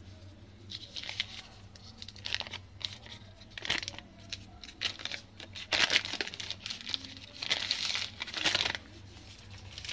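Wrapper being peeled off a block of butter and crumpled by hand, crinkling in irregular bursts that are loudest in the second half.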